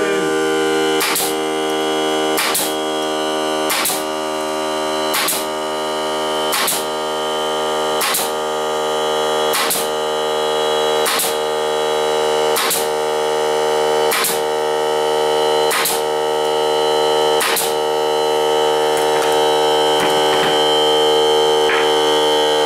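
Ryobi cordless air compressor's pump running steadily while a 16-gauge pneumatic brad nailer fires 30 mm brads into wood, a sharp shot about every one and a half seconds, a dozen or so in all, fading out near the end. The compressor keeps up enough pressure to drive each brad.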